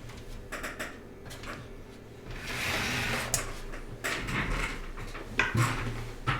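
Hands handling computer parts on a desk: scattered clicks and knocks, a scraping rustle about two and a half seconds in, and a few heavier knocks near the end.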